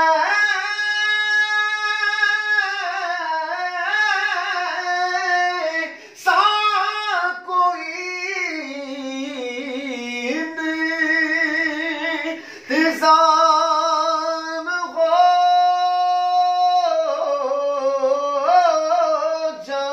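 A man singing a naat unaccompanied. One voice holds long, steady notes and decorates them with wavering runs, with short breaks for breath between phrases.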